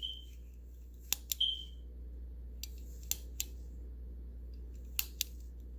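A vintage pocket watch being handled: a few small, irregularly spaced clicks and two short high pings, over a low steady hum.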